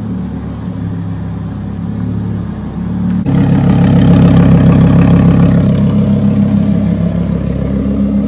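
Lamborghini Huracán's V10 idling steadily through a Capristo aftermarket exhaust. It gets suddenly louder about three seconds in and stays loud.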